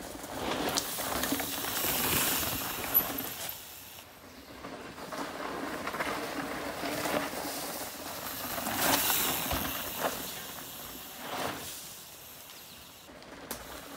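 Mountain bike tyres rolling and crackling over a dirt trail strewn with dry leaves, swelling and fading in waves as the bike passes close, with scattered small clicks.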